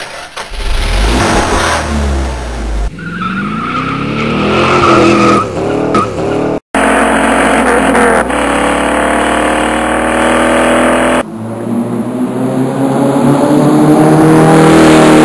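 Car engine sound effects revving and accelerating in several spliced segments, each cutting off abruptly, about three, seven and eleven seconds in. A tire squeal runs from about three to five seconds in.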